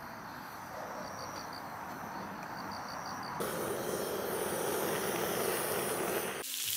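Handheld butane torch jetting its flame at split firewood with a steady hiss that grows louder and fuller about three and a half seconds in, then stops abruptly near the end. Crickets chirp faintly underneath.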